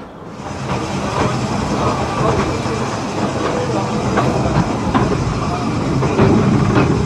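Narrow-gauge steam train hauled by Corris Railway No 10, heard from the leading carriage: the steady noise of the running train with wheels clicking over the rail joints, louder from about half a second in.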